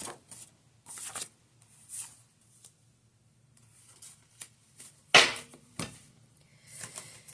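Tarot cards being handled and shuffled: short bursts of card rustling and light clicks, with a sharper, louder sound about five seconds in.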